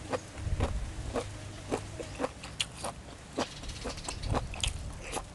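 Close-up wet, crunchy chewing of beef tripe salad: a string of sharp crunches and mouth clicks, two or three a second, unevenly spaced.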